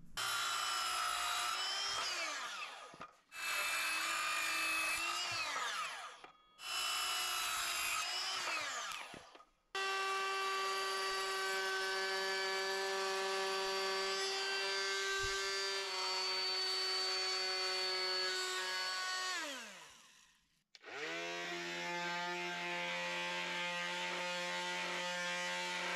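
Cordless Ryobi trim router running with its bit cutting into a small wooden board, a steady high motor whine. It is switched on and off five times, each run spinning up and winding down, the longest lasting about ten seconds.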